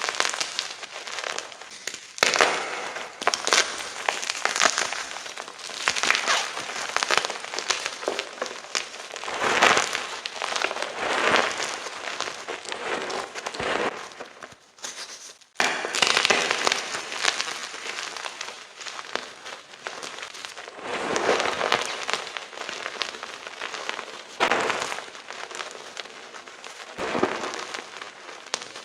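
Chunks of gym chalk being crushed and crumbled, a dense crunching crackle that comes in swells. It breaks off abruptly for a moment about halfway through, then starts again.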